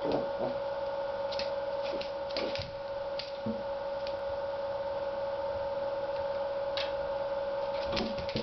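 Scattered clicks and taps from a Norfolk terrier puppy scrabbling on a vinyl floor while playing with tennis balls, its claws and the balls knocking on the floor and table legs. A steady hum runs underneath.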